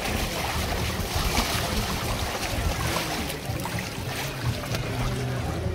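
Water splashing and sloshing in a shallow inflatable pool as children roll inside plastic water-walking balls over it, with a steady low hum underneath.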